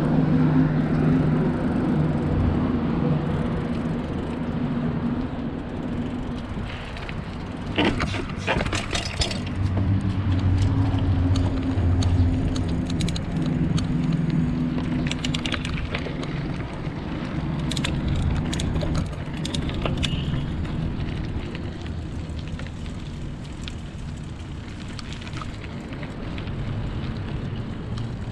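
Bicycle being ridden, heard from a chest-mounted camera: steady rolling noise with a low hum, and clusters of sharp rattling clicks about eight, fifteen and nineteen seconds in.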